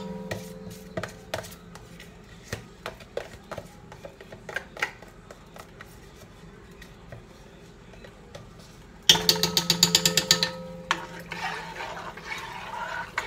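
A utensil scraping butter spread out of a plastic Country Crock tub into a pot. It starts as scattered light scrapes and taps, and about nine seconds in comes a couple of seconds of rapid scraping strokes.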